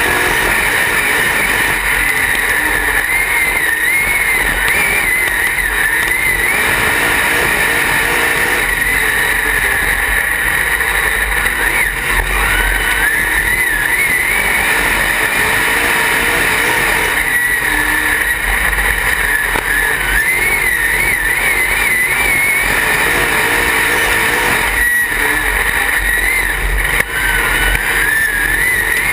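Dirt-track race car's engine heard from inside the cockpit, running hard under load with its pitch rising and falling again and again, over steady wind and track noise.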